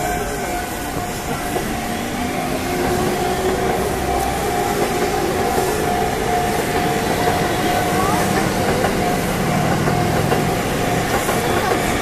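Electric commuter train running past, its wheels clattering on the rails, with a steady tone over it and the murmur of a crowd.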